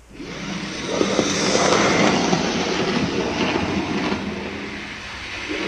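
OO gauge model Class 37 diesel locomotive with a ring-field motor running on the layout track: motor hum and the wheels rumbling and clattering over the rails. It starts suddenly at the beginning and swells and fades a little as the loco moves.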